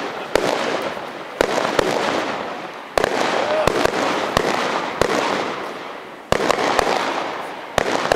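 Professional fireworks display firing: a quick series of sharp bangs, about ten in eight seconds, each followed by a noisy tail that fades away before the next bang.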